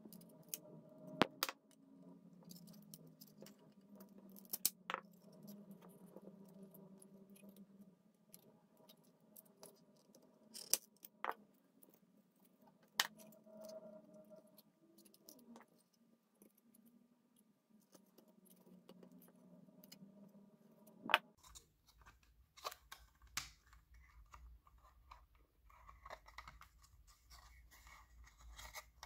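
Hard plastic clicking, snapping and scraping as the Panasonic RC-70 clock radio's plastic casing is prised apart with a screwdriver and its parts handled: a handful of sharp clicks spread through, over a faint steady background that stops about two-thirds of the way through.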